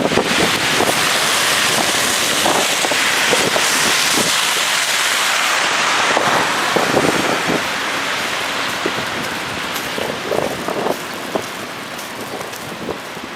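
Steady, loud hiss of street noise in a snowstorm: wind on the microphone and traffic on the wet, snowy street. It eases off over the second half.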